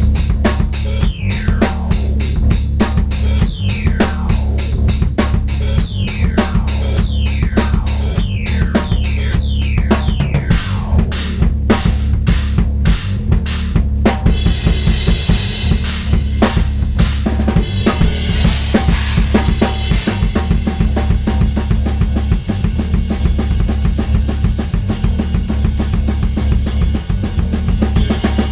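Drum kit played in a steady, dense groove of bass drum and snare hits, over a backing of audio samples. Several falling sweeps sound over the drums in the first third, and a denser hissy layer comes in about halfway.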